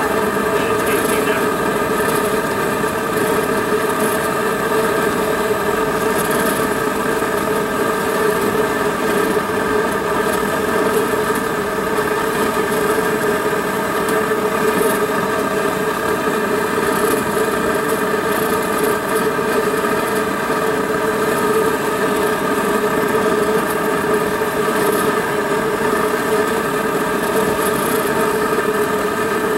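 Propane flame heating an engine-manifold prop: a loud, steady roar with a constant hum in it that does not change.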